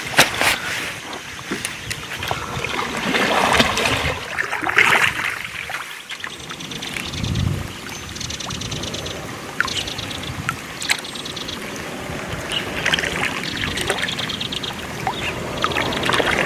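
Water trickling and lapping against a kayak, with scattered small clicks and knocks and a few short runs of fast ticking.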